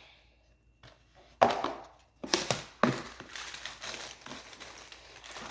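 Plastic packaging crinkling as it is handled, with a few sharp knocks about a second and a half in and again around two and a half seconds.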